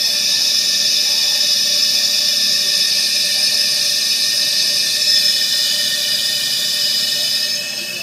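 Shop compressed air fed into a cylinder of a Ford 3.0 L Vulcan V6 rushing out of an open intake port as a loud, steady hiss with a few whistling tones, fading near the end. The air is getting past the cylinder's intake valve: a large intake-valve leak.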